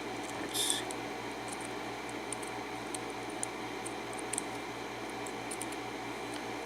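Faint light ticks and clicks of small metal lock parts being handled as the pins are worked out of a lock cylinder, over a steady low hum, with a brief hiss about half a second in.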